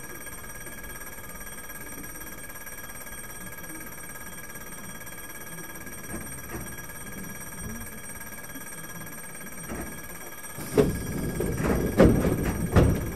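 Inside the front cab of a Tokyu 7700 series electric train at a stand, no running noise: a steady high ringing tone holds throughout, then about eleven seconds in comes a short run of loud knocks and clatter.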